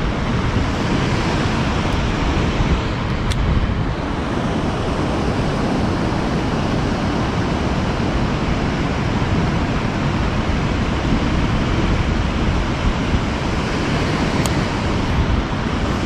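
Steady rushing noise of falling and flowing water from a waterfall and river.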